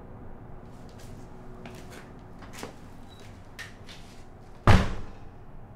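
Steady low road and engine noise inside a moving Jeep's cabin, with a few faint clicks, then one loud, sudden thump near the end that dies away within about half a second.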